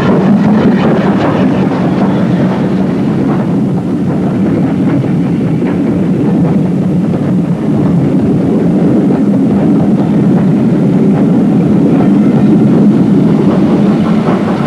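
Steam-hauled passenger train running along the line: a loud, steady rush of locomotive and carriages on the rails.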